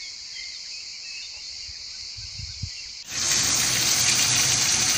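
Crickets chirring steadily, with a few faint bird chirps. About three seconds in, this gives way suddenly to a much louder, steady sizzle of green hot peppers frying in oil in a pan.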